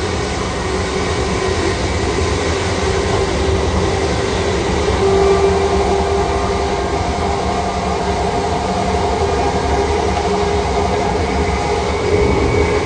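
Class 387 electric multiple unit running at speed, heard from inside the carriage: a steady running rumble with the traction motors whining in several steady tones.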